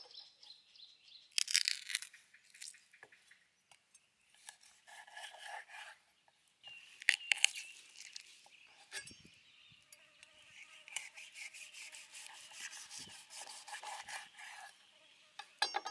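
A kitchen knife splitting raw pig feet on a wooden chopping board: crunching and cracking as the blade works through skin, cartilage and bone, with the blade knocking on the board. It comes in bouts, sharpest about a second and a half in and again about seven seconds in, then a long run of quick rasping strokes near the end.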